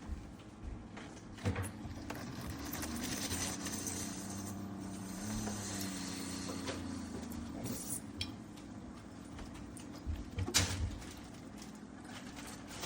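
A small motor hums steadily for several seconds before fading out, with sharp clicks and knocks about a second and a half in and again near the end.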